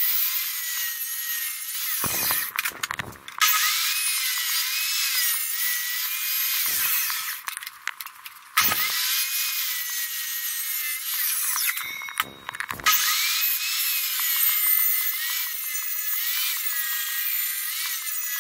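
Table saw ripping wood, the blade's pitch dipping and rising as it cuts, with a few brief breaks. The sound is thin, with no low end.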